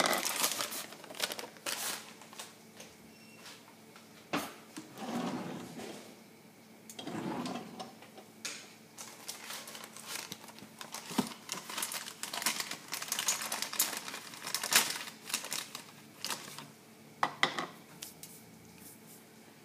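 Kitchen handling noise: irregular clicks, taps and light knocks of dishes, utensils and containers being moved, coming in clusters with a few soft rustling stretches.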